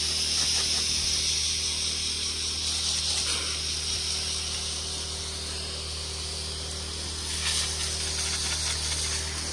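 Water jetting from a washdown gun against a brick wall, a steady hiss, over the steady low hum of the Predator 1-inch water pump's gas engine. The hiss grows louder for a moment near the end as the stream swings down onto the ground.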